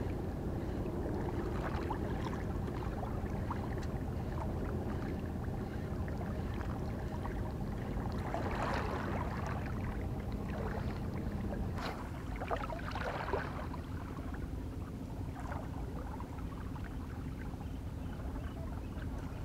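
Steady low hum of a boat engine over a faint wash of water. About twelve seconds in the hum shifts slightly higher in pitch.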